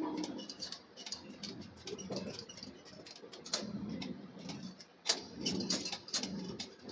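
Irregular light clicks, taps and knocks of metal workshop work, several a second, with a few sharper knocks just past the middle, over a low background rumble.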